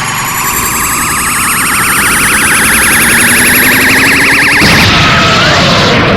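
Kamehameha energy-beam sound effect: a loud, rising, fast-warbling charge-up whine that about four and a half seconds in gives way to a noisy blast as the beam fires.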